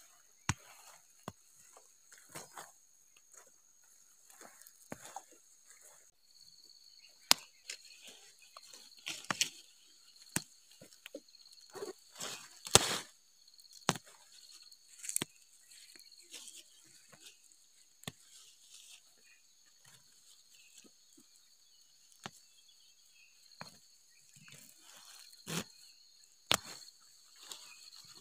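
Weeds and vines being pulled up by hand and thrown aside: irregular rustling of leaves and occasional sharp snaps of stems and roots, the loudest about halfway through. A steady high insect drone runs behind.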